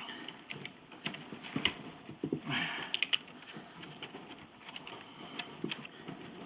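Scattered metallic clicks and knocks, with a short scrape about two and a half seconds in, from a wrench turning the clamping bolts of a steel-plate cable clamp as the bolts are tightened down onto a steel cable.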